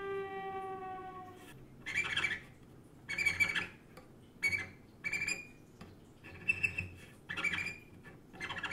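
Bowed cello imitating animal sounds: a long falling note imitating a wolf's howl fades out in the first second and a half. Then comes a string of short, high squeaks played on the cello to imitate a mouse.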